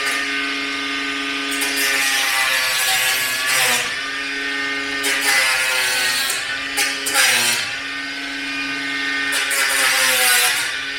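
Bosch power tool cutting through the plastic tabs of interlocking floor tiles, its motor running at a steady pitch that sags briefly each time it bites in, about two, four and seven seconds in.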